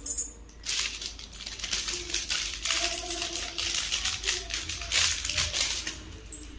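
Rustling and crinkling of a plastic packet with many quick light clicks, as a choker necklace on its card is pulled out of it.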